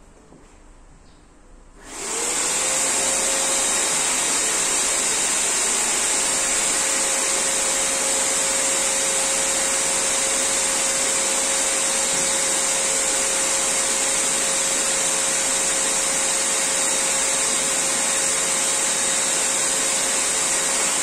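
Electric inflator switching on about two seconds in, its motor whine rising quickly to a steady pitch, then running with a steady rush of air as it pumps up an inflatable boat.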